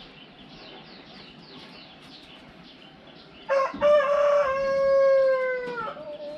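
A rooster crows once about three and a half seconds in: a loud call lasting about two and a half seconds that drops in pitch at the end. Before it, small birds chirp in quick, repeated falling notes.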